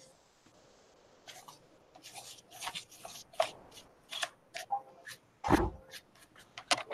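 A paintbrush rubbing and scratching over painted paper in a composition notebook, with light rustling of the pages, in short irregular strokes. A duller knock comes about five and a half seconds in.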